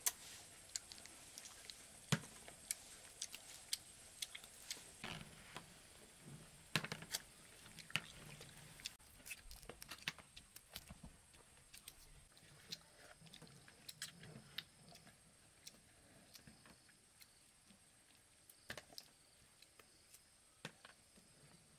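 Longans being cracked open, peeled by hand and eaten: a scatter of small, sharp, irregular clicks and cracks with soft chewing.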